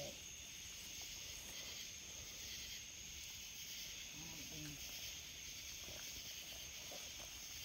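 Steady high-pitched chorus of night insects. A brief faint voice comes in about four seconds in.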